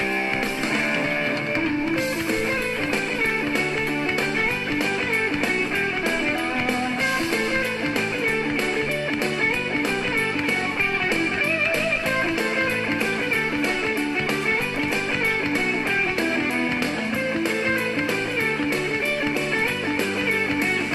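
Background music: a guitar-driven rock track with a steady beat.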